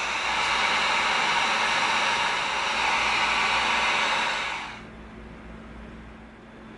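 Steady rushing of air from a blower-type power tool running, which winds down and stops about four and a half seconds in, leaving a quieter low hum.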